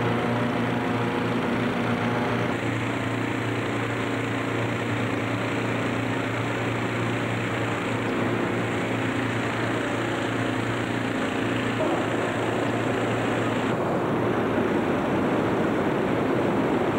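Many hot air balloon inflator fans running together in a vast hangar: a steady, loud engine drone under a rushing noise. About twelve seconds in the engine tones fade and the rushing grows fuller.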